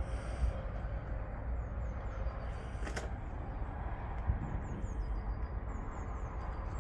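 Outdoor background noise: a steady low rumble with faint high chirps and a single click about three seconds in.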